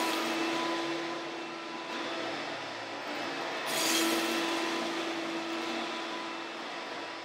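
Hoover Dial-a-Matic upright vacuum cleaner running over carpet, sucking up spilled powder: a steady motor hum under a rushing hiss that swells louder about four seconds in.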